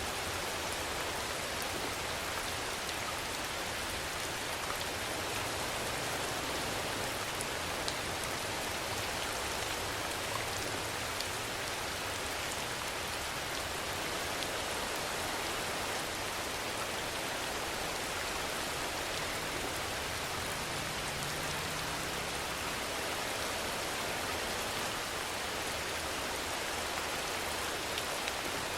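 Steady rainfall: a dense, even hiss of rain with a few separate drops ticking here and there.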